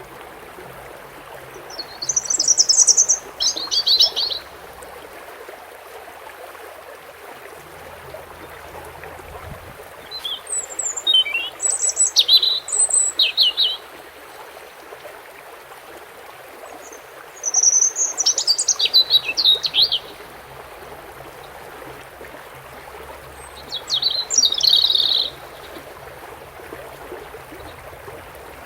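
European goldfinch singing in four short bursts of rapid, high-pitched twittering, over a steady hiss of running water.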